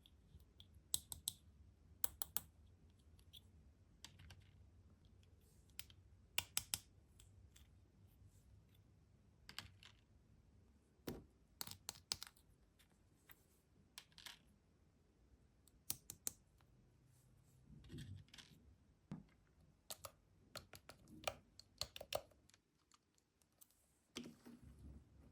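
Small plastic toy pieces being handled and set in place: scattered light clicks and taps, several in quick pairs, with a few short rustles.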